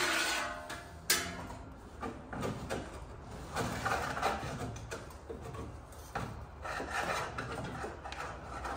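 Irregular scraping and knocking of a new steel sill panel being handled and offered up under a van's sill, with a sharp knock about a second in.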